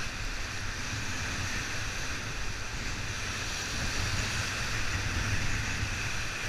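Whitewater rapids rushing steadily around an inflatable raft, with wind buffeting the camera microphone.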